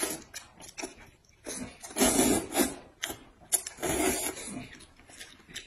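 Hot-and-sour glass noodles being slurped in several noisy bursts, the longest about two seconds in and again near four seconds, with wet chewing and lip smacks between.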